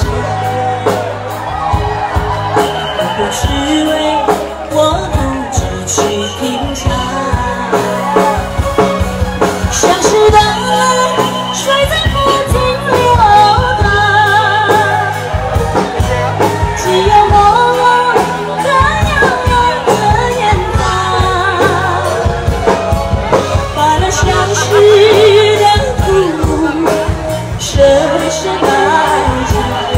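Live pop song: a female singer sings into a microphone over an amplified backing track with bass and a beat.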